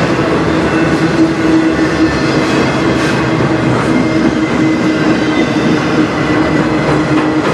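CN manifest freight train rolling past at close range: a steady, loud rumble of steel wheels on rail with a steady humming tone over it.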